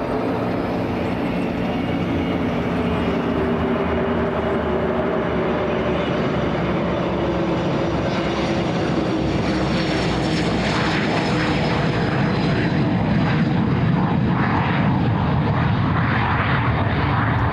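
Gulfstream G150 business jet's twin Honeywell TFE731 turbofans at takeoff power as it accelerates down the runway. A steady whine gives way to a louder, broader roar from about ten seconds in, as the jet runs away from the microphone.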